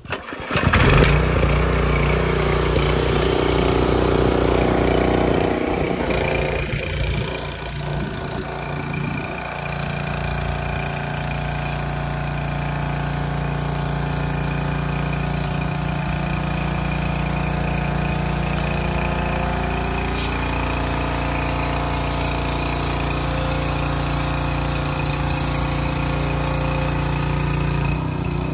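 Gasoline pressure washer's small engine starting up about half a second in, then running steadily while its wand sprays soapy water, with the hiss of the spray over the engine's drone.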